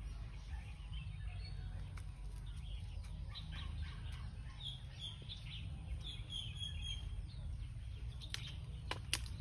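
Birds chirping in short, scattered calls over a steady low rumble, with a few sharp clicks near the end.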